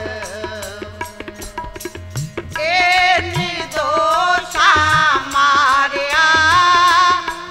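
Shabad kirtan: harmonium and tabla, with the tabla's bass drum sliding up in pitch on several strokes. Singing comes in about two and a half seconds in and carries the melody over the accompaniment.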